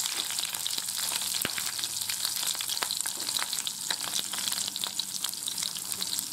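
Sliced shallots and Indonesian bay leaves frying in hot oil in a pan: a steady sizzle with frequent small crackles and pops.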